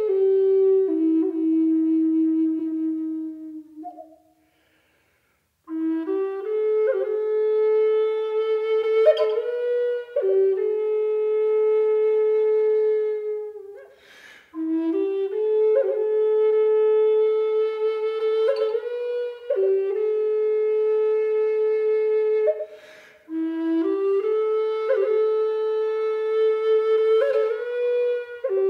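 Background music: a solo flute playing a slow melody of long held notes in phrases, falling silent for about a second and a half around four seconds in.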